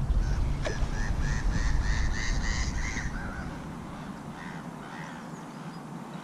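A bird calling in a quick series of harsh, caw-like notes, about three or four a second, with a few fainter calls a moment later. A low rumble underneath fades out about halfway through.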